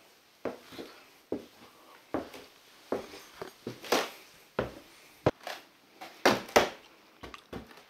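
Footsteps on old wooden floorboards: a run of short knocks at walking pace, about two to three a second.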